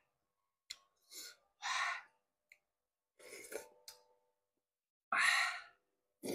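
Mouth sounds of a man eating rice porridge from a spoon: a few short breathy puffs and slurps with small clicks between them, the loudest puff about five seconds in and a short low thump near the end.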